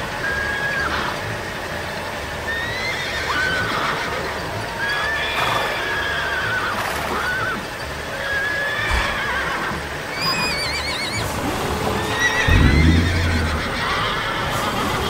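Horses whinnying again and again, short wavering high calls one after another. A louder low rumble comes in near the end.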